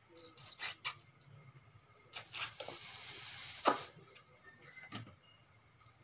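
Noodles being slurped: several short, hissing slurps, the sharpest about three and a half seconds in.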